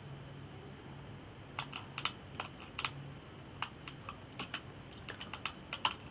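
Computer keyboard keys and mouse buttons clicking irregularly: a few scattered clicks, then a quicker run of clicks near the end.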